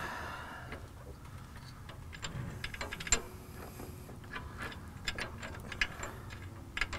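Irregular metallic clicks and clinks of hardware being worked by hand at the track bar mount, thickest in the second half.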